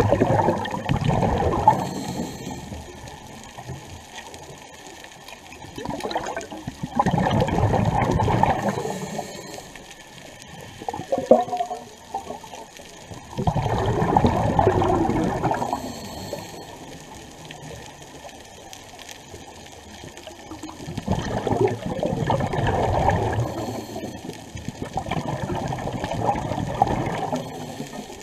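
Scuba breathing heard underwater: a rush of bubbles from a regulator exhaust about every six to seven seconds as the diver breathes out, with quieter stretches between breaths.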